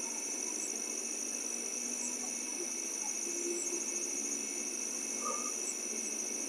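Night chorus of crickets and other insects: a steady high-pitched trilling, with small chirps repeating on top.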